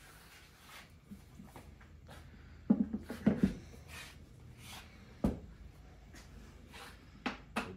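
Knocks and clicks of a Masso touchscreen controller being handled and fitted onto its mount on a CNC machine, with the sharpest knocks about three seconds in, again about five seconds in, and twice near the end, over a faint low hum.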